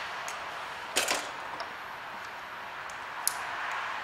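A few sharp clicks as a wire connector is crimped onto the indicator wire, the loudest about a second in, with smaller ticks later, over a steady hiss.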